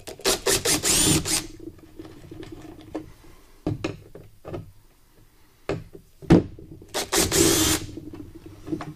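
Cordless drill-driver backing out screws in two runs. The first comes in a few quick trigger pulses and then holds for about a second. The second, of about a second, comes around seven seconds in. A few short knocks fall between the runs.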